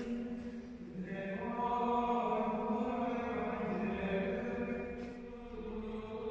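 Slow, chant-like sacred singing, the voices holding long, drawn-out notes that shift pitch only now and then.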